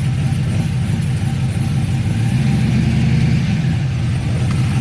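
Cammed LS-family V8 of a 2000 Chevy Silverado running near idle, with a slight rise in engine speed around the middle.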